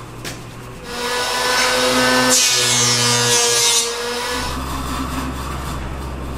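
Metal tool scraping and rubbing on a small brass sword fitting clamped in a bench vise, starting about a second in with a scratchy sound and some ringing tones, loudest through the middle and quieter in the last two seconds.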